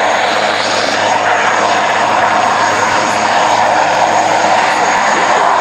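Military helicopter flying low past, its engines and rotor running loud and steady.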